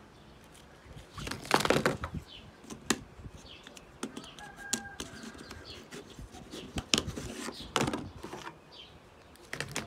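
Handling of old plastic mobile phones on a wooden table: irregular clicks and knocks as phones are picked up and set down and a back cover is taken off, with a few louder rustling bursts. Faint short high calls sound in the background.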